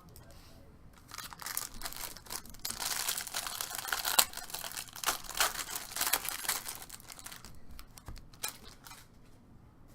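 Crinkling and tearing of a trading-card pack wrapper being ripped open by hand, a dense crackle of small clicks lasting several seconds, then a few last rustles near the end.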